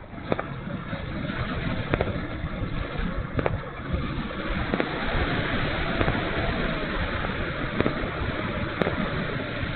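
Wind rushing over the onboard camera of an E-flite Night Radian RC glider in flight, a steady noise that swells up out of a quieter moment at the start. A handful of sharp pops stand out over it at irregular intervals.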